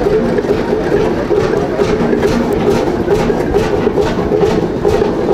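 Old two-stroke semi-diesel (hot-bulb) ship's engine idling, with a steady, regular beat of about two to three strokes a second.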